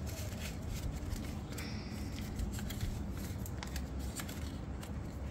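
A sheet of paper being folded and creased by hand, rustling with many small irregular crackles.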